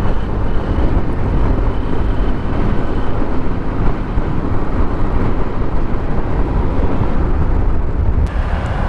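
Wind rushing and buffeting on the microphone, with road noise, from a scooter riding at about 60 km/h on a highway.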